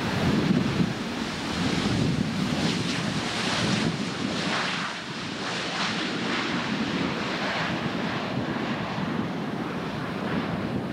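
Wind buffeting the microphone over the steady rush of a Boeing 737 Business Jet's turbofan engines as the jet taxis along the runway.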